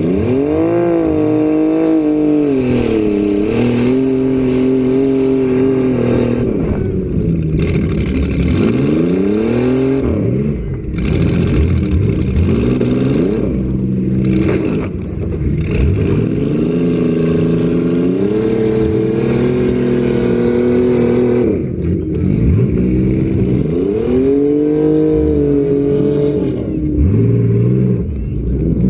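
Several demolition derby cars' engines revving hard up and down over and over, their rising and falling pitches overlapping.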